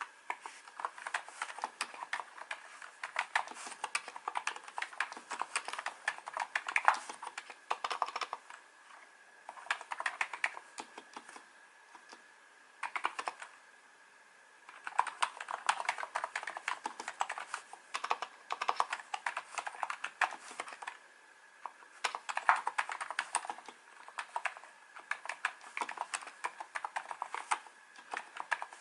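Typing on a NiZ Plum 87-key electrostatic capacitive keyboard with 35 g switches: fast runs of key clicks, broken by a few short pauses. A faint steady high tone runs underneath.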